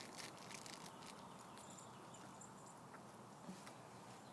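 Faint scattered clicks and rustling of a puppy pawing and nosing at a slicker brush.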